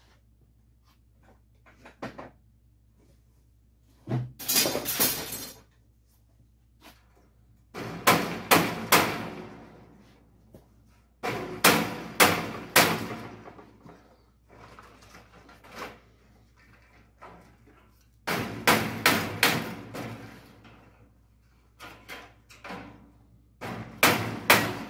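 Steel frame of a 1951 Chevy truck bench seat being banged together, its two cut halves driven onto pipe pins before welding: about six bursts of quick, ringing metal knocks with quiet gaps between them.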